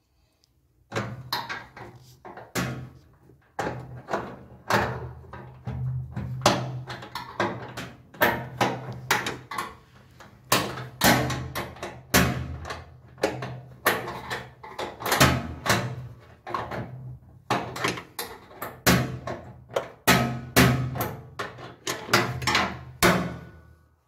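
Repeated sharp metallic knocks and clanks, irregular at roughly two a second, of a spanner working at the shock absorber bolt on a Bosch front-load washer's tub and sheet-metal frame.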